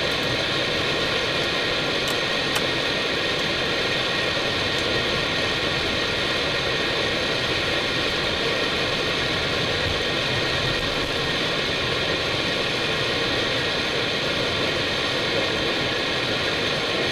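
Steady, unchanging cockpit noise inside an Airbus A319: an even rush of air and engine noise with faint steady tones in it.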